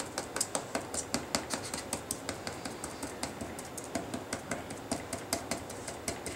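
Quick, light tapping clicks, about four or five a second and slightly irregular, of a paint-dabber bottle dabbing paint onto the raised hot-glue circles on a cardboard paper towel tube.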